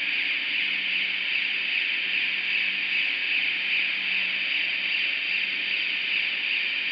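Electric railway turntable rotating with a rail transfer cart on board: a steady, even hiss-like running noise with a faint low hum underneath.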